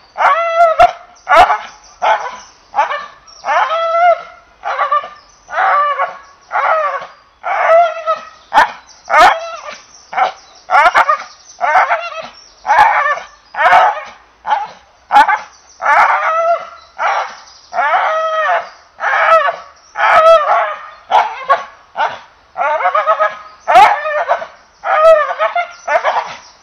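English Bull Terrier barking over and over in a steady, even rhythm, about three high-pitched barks every two seconds.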